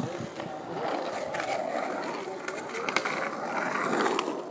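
Skateboard wheels rolling over the concrete of a skate bowl, the rolling noise swelling and easing as the board carves through the transitions, with a few sharp clicks from the board.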